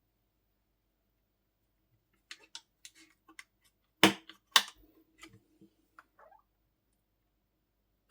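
Slime and soft clay being squeezed and mixed by hand, giving a scatter of small clicks and pops. Two loud, sharp pops come about four and four and a half seconds in.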